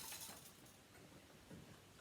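Near silence: the last faint hiss of a vintage Hoover vacuum cleaner's motor dying away in the first half second, then room tone with a faint tick about one and a half seconds in.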